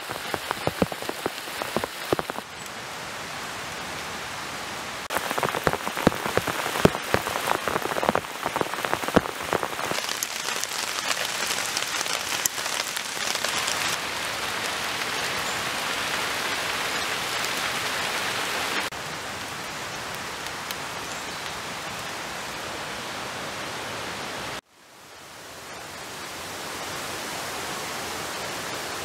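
Rain falling in a forest, with many distinct drops pattering on leaves over the first ten seconds. The texture shifts abruptly several times and briefly drops out near the end, then a steady hiss carries on.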